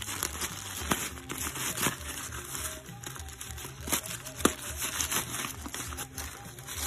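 Plastic poly mailer bag being crinkled and torn open by hand, with a few sharp crackles.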